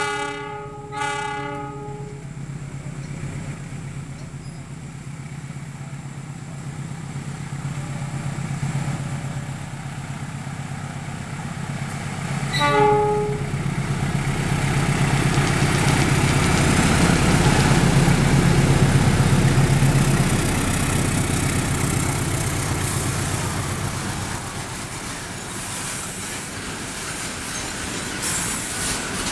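KAI CC201 diesel-electric locomotive sounding its multi-tone horn in two blasts, then passing with a freight train. Its diesel engine throbs steadily, a short horn toot comes just before halfway, and wheel and rail noise from the train builds to a peak past the middle and then fades.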